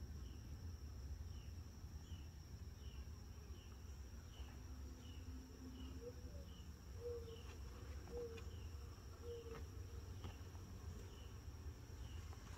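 Faint chorus of night insects: a steady high-pitched drone with a short chirp repeating about every three-quarters of a second, over a low background rumble.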